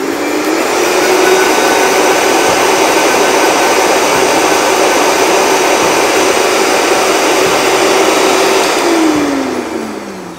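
Countertop high-speed blender puréeing a green watercress sauce. The motor rises in pitch as it spins up, runs loud and steady, then falls in pitch as it winds down about nine seconds in.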